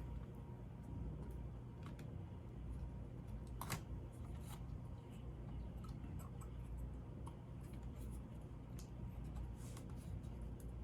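Faint scattered clicks and taps of small laptop parts being handled as the heatsink is fitted over the freshly pasted processor, over a low steady hum. The clearest click comes about a third of the way in.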